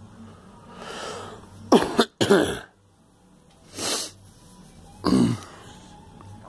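A girl coughing: a breath in about a second in, then a quick run of three coughs, and two more single coughs near the middle and near the end.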